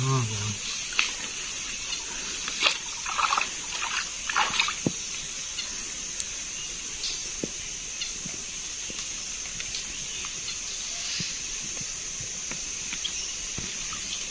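Water splashing and sloshing as hands handle and lift a mesh fish trap in a shallow stream. The splashes cluster in the first five seconds, with only a few small drips and ticks after that, over a steady high-pitched hiss.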